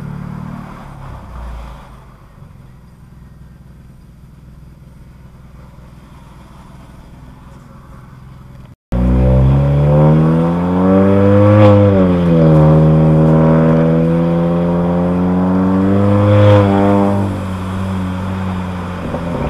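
Honda Accord 1.5-litre turbo four-cylinder with a downpipe, front pipe and resonator and muffler delete. For the first half it runs quietly and low. After a sudden cut the exhaust is loud: the engine revs up, dips, climbs again to a second peak, then falls back and holds a steadier, lower note near the end.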